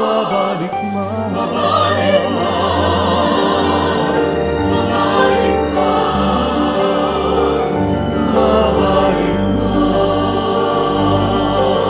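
Music: choral singing in long held notes with vibrato over a steady low accompaniment.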